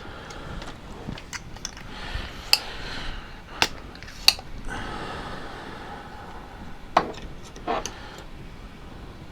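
Small sharp clicks and taps of hand tools at a soldering bench, about five spread over several seconds, with a faint hiss in between.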